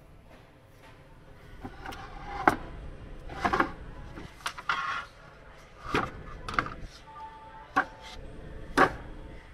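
Wooden cutting boards being handled on a store shelf: a run of irregular sharp wooden knocks and clacks, about one a second, as boards are pulled out and bumped against each other and the shelf.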